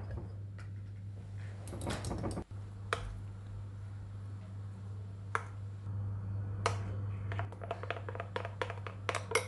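Metal spoon clinking and scraping against a ceramic bowl while stirring a thick batter-like sauce: a few scattered clinks, then a quick run of them near the end. A steady low hum runs underneath.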